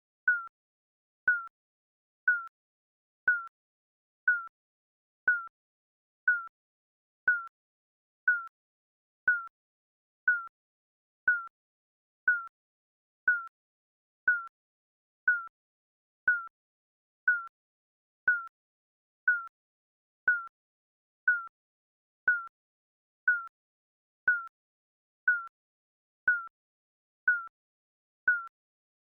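Digital countdown timer beeping once a second, each a short, high beep that dips slightly in pitch, with silence between beeps.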